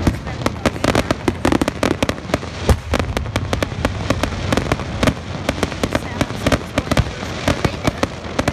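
Fireworks finale barrage: aerial shells bursting in a dense, irregular run of bangs, several a second, overlapping one another.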